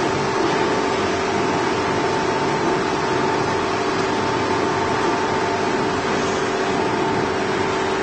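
1000 mm automatic knife grinding machine running steadily: an even mechanical hum with a couple of held whining tones over a steady rushing noise.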